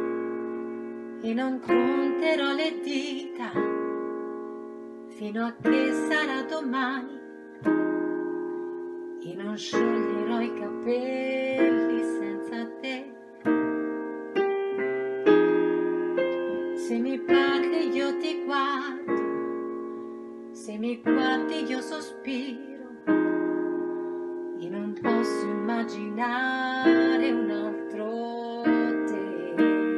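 Piano-voiced keyboard played in slow chords, each chord struck and left to ring and fade, with a new chord roughly every two seconds.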